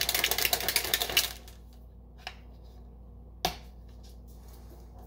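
Protein shaker bottle holding milk and protein powder shaken hard, a fast rattle for about a second and a half. Then two sharp clicks from the lid, the second louder.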